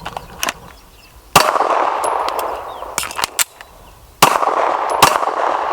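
Two handgun shots about three seconds apart, each trailing off in a long echo, with metallic clicks and clanks between them from a fast magazine change (a combat reload).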